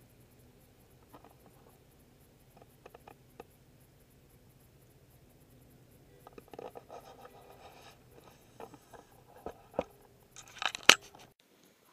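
Handling noise of a pole-mounted helmet camera being moved about: a faint steady low hum with scattered small clicks, then rustling and scraping from about halfway, and several sharp knocks near the end, the loudest just before it cuts off, as the pole is brought back into the truck cab.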